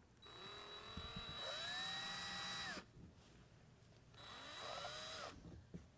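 Cordless drill run twice in short bursts, marking or drilling the mounting holes: the motor whine rises in pitch as it spins up and holds for about two seconds, then stops. A second, shorter burst follows about a second later.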